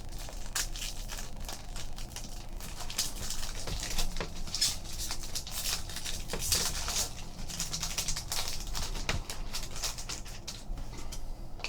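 Trading card packs and cards being handled: rustling and crinkling of wrappers with many small irregular clicks and taps as the next pack is opened and its cards slid out.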